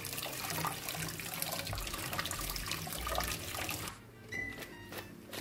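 Kitchen tap running into a stainless steel bowl while hands rub and rinse raw chicken pieces, with splashing water. The water stops about four seconds in, and a few light knocks follow as the pieces are handled in a plastic colander.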